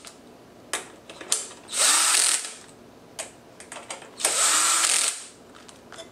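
DeWalt cordless power screwdriver with a hex socket, driving 10 mm hex bolts into a motorcycle's rear crossbar. It runs in two short bursts of about a second each, one about a second and a half in and one about four seconds in, with a few small clicks of handling between.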